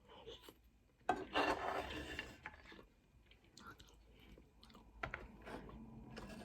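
Someone chewing a mouthful of egg noodles. There is a louder noisy stretch of about a second and a half starting a second in, then small wet mouth clicks.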